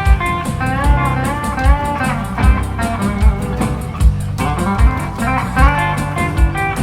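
Live band playing an instrumental break: a lead guitar line with bent notes over a steady kick drum beat a little more than once a second and ticking cymbals, with no vocals.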